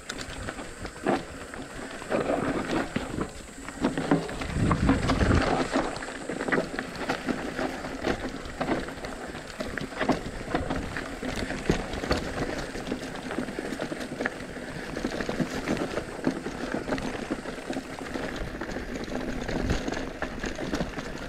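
Ibis Mojo HD3 mountain bike rolling fast downhill on a dirt and rock trail: tyres crunching over dirt, rocks and dry leaves, with scattered knocks and clatter from the bike, and a louder low rumble about five seconds in.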